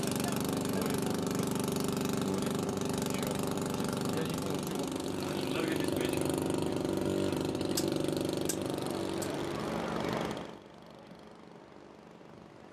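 An engine running steadily, a dense even drone that drops away abruptly about ten and a half seconds in, leaving a much quieter background. A few faint ticks come shortly before the drop.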